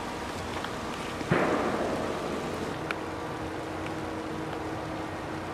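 A single distant rifle shot about a second in, its report rolling away through the woods over about a second, over a steady background hiss.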